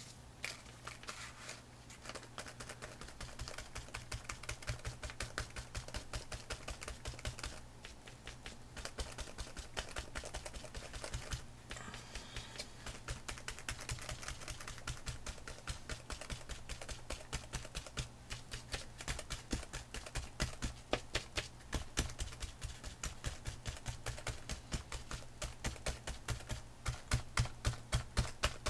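Paint-loaded sponge pouncing blue craft paint through a plastic stencil onto a book page, a rapid run of soft taps several times a second, growing louder in the last third.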